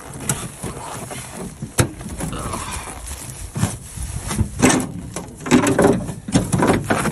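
Irregular knocks, scrapes and rustling as gloved hands handle a truck's battery-box cover. Sharp knocks come now and then, and the handling grows busier in the second half.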